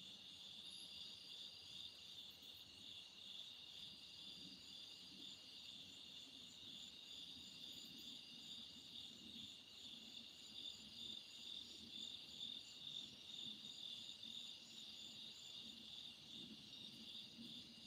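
Faint night-time insect chorus: crickets chirring steadily in a high, finely pulsing band.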